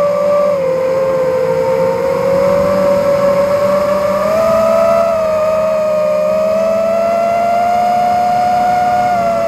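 FPV racing drone's brushless motors and propellers whining, heard from the drone itself. The pitch dips about half a second in, steps up about four seconds in, then climbs slowly as the throttle changes.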